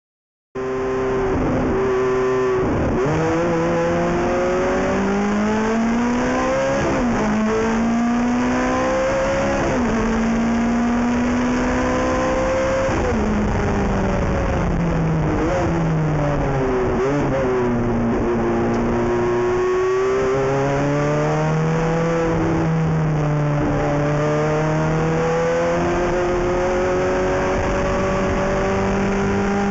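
Ferrari F430 GT race car's V8 engine being driven hard on track, its pitch climbing through the gears and dropping sharply at each shift every few seconds. Longer falls in pitch mark lifting off and slowing, with quick dips and rises between.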